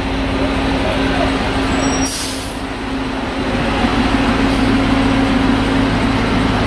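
Fire engine's engine running steadily close by, with a short burst of hiss about two seconds in.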